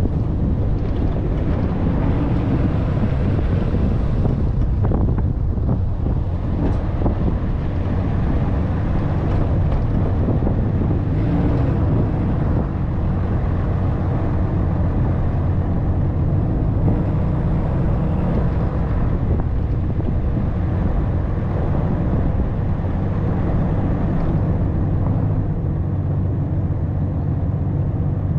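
Dodge RAM 3500 pickup driving along a rough dirt track: a steady low engine and tyre rumble, with wind buffeting the hood-mounted camera microphone and a few short knocks from the rutted ground.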